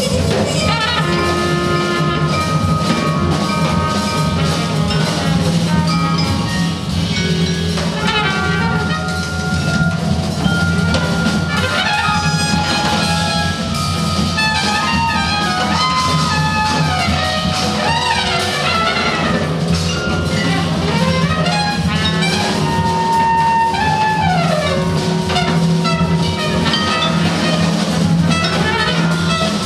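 Large jazz ensemble playing live: brass over drums and percussion above a steady low drone, with many tones sliding up and down in pitch.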